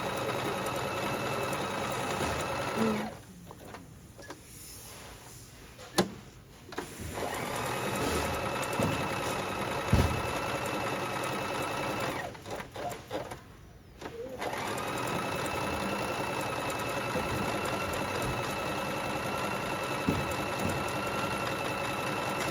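DT 520 domestic electric sewing machine stitching with a steady motor hum. It runs in three stretches and stops twice for a few seconds, with a click during the first stop.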